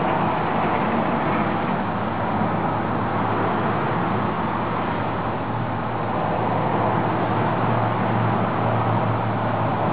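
Steady low engine drone under a constant rushing noise, the hum growing somewhat stronger in the second half.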